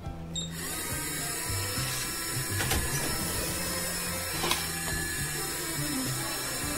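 Small lift motor of an automatic interfacial tension tester running steadily as it raises the sample cup, starting just after Start is pressed, with a couple of faint clicks near the middle.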